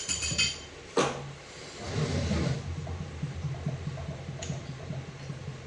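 Workshop handling noises on an automatic transmission being dismantled. A short metallic ring at the start, a sharp knock about a second in, then a scraping rustle and a few light ticks, over a steady low hum.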